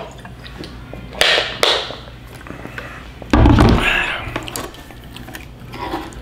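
A man breathing out hard through an open mouth after gulping water, his mouth burning from spicy noodles. There are two short huffs a little over a second in, then a louder, heavier one at about three and a half seconds.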